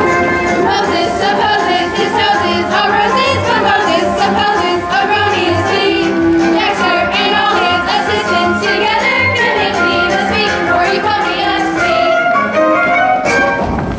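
Musical-theatre number: voices singing with vibrato over instrumental accompaniment. It breaks off abruptly near the end.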